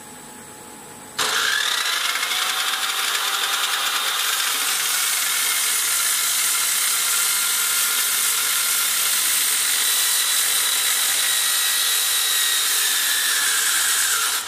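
Cut-off saw on a spiral tube mill cutting through the spiral-welded perforated stainless steel tube: a loud, steady grinding of metal that starts suddenly about a second in and holds until the end.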